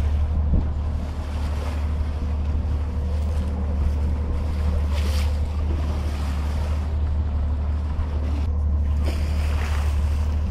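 Jet boat's engine running with a steady low drone under rushing water and wind buffeting the microphone, with a couple of louder splashes about halfway and near the end.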